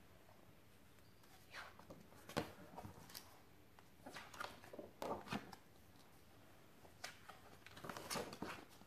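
Stiff cardboard pages of a board book being handled, opened and turned: a few soft taps and short brushing rustles, scattered and faint.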